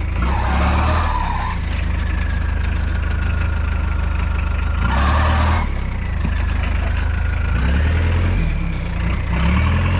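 Off-road jeep's engine running at low revs as the jeep backs down a slippery, muddy trail, revving up in short swells around the first second, about halfway through and near the end. A faint whine rises and falls with the revs.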